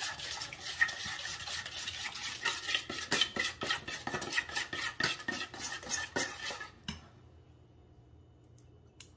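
Metal spoon stirring a liquid dressing in a small stainless steel bowl: quick, continuous clinking and scraping against the bowl for about seven seconds, then it stops.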